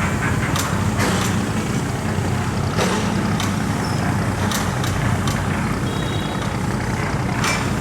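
Large boat diesel engine running hard and steady: a loud, low drone with brief sharp noises now and then.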